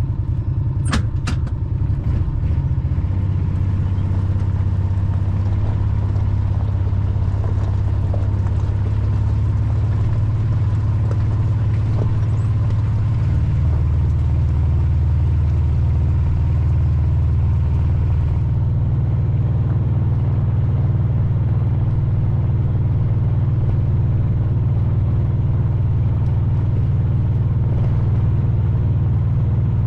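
Vehicle engine running steadily under way, a low drone that steps in pitch a couple of times, with a few sharp knocks about a second in.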